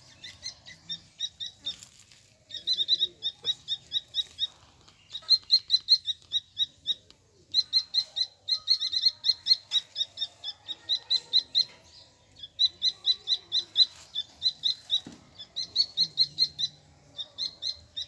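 Grey francolin chicks cheeping: quick runs of short, high notes, about eight a second, in bouts of one to two seconds separated by short pauses, fainter for the first couple of seconds.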